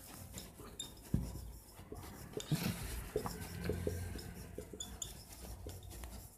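Marker pen writing on a whiteboard: faint scratching strokes and small taps, in short irregular spurts.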